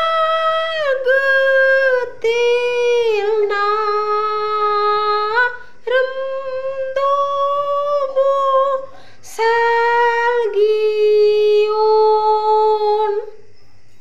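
A woman singing solo and unaccompanied in Garo, a religious song about Jesus, holding long drawn-out notes in separate phrases. The singing stops about a second before the end.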